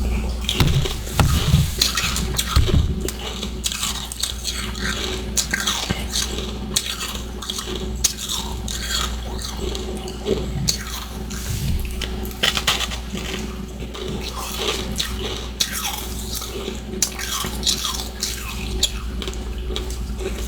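Close-miked chewing of powdery humidifier freezer frost and ice chunks: a continuous run of crisp, irregular crunches, over a steady low hum.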